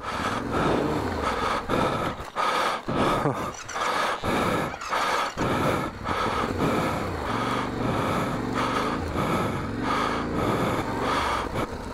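Adventure motorcycle's parallel-twin engine running, its revs rising and falling as the rider works the throttle to get the bike unstuck.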